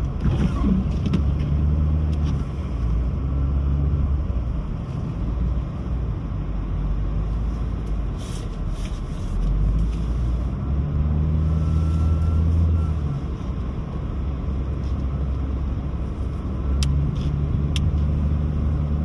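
A car driving on snowy city streets: steady tyre and road noise with a low engine hum that swells and eases a few times. A couple of sharp clicks come near the end.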